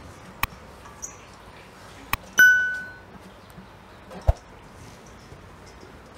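Subscribe-button animation sound effect: a sharp mouse click, then a bright bell ding a moment later that rings out for about half a second. Another click comes about half a second in, and a dull knock about four seconds in.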